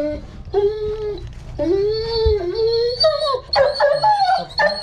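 German Shepherd whining during labor: two long, drawn-out cries, then a run of quicker, higher-pitched cries from about three seconds in.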